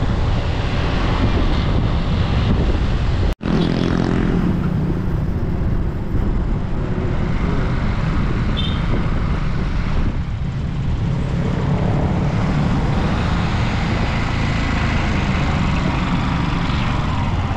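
Riding pillion on a motorcycle taxi through city traffic: steady engine and road noise with a low rumble. It drops out for an instant about three and a half seconds in.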